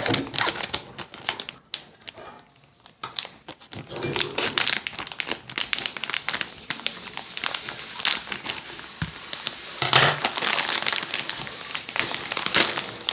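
Something being crumpled and crinkled by hand: a dense run of irregular small crackles, with a brief quieter pause about two seconds in.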